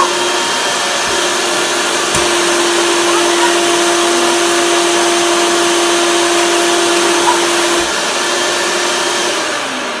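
1977 Hoover Celebrity Deluxe S3001 canister vacuum cleaner running steadily: a rushing hum with a steady motor whine. The whine grows stronger after a click about two seconds in, and the level eases off near the end.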